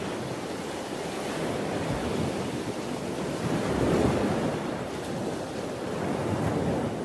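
Ocean surf breaking on rocks: a steady wash of waves that swells about halfway through and again near the end.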